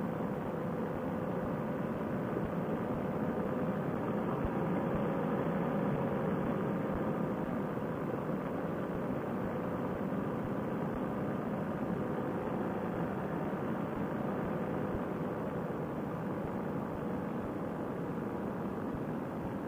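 Paramotor trike's engine and propeller running steadily in flight, throttled back near idle: a constant drone with a held tone, swelling slightly a few seconds in.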